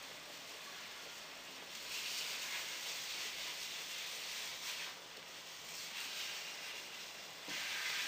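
Pot of basmati rice boiling and being stirred with a wooden spoon: a steady hiss that swells from about two seconds in until about five seconds in, and again briefly near the end.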